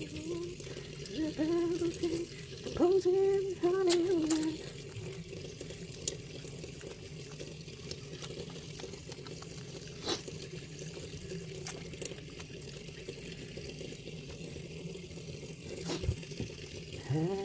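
Water running from a kitchen tap into a stainless-steel sink while wet hands lather a bar of soap under the stream. A voice hums a few wavering notes in the first four seconds, and there is a sharp click about ten seconds in.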